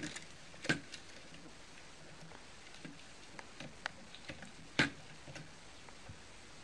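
Scattered light clicks and taps as a cat bats at a string wand toy, with two sharper clicks, one just under a second in and one near the end, over a faint steady hiss.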